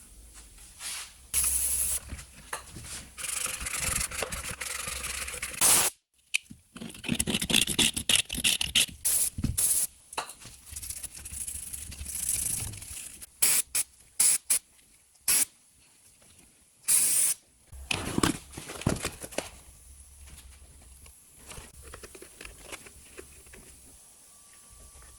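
Irregular workshop noise from work on a car's rear suspension: scraping and rubbing, sharp knocks, and short hissing bursts that come and go.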